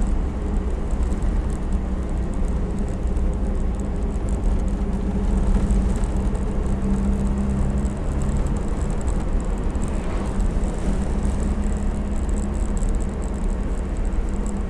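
IZh-2717 'Pirozhok' van on the move, heard from inside the cab: a steady engine drone and road rumble with faint high ticking. The ticking fits the creaks and rattles from the van's rear box, which the driver cannot locate.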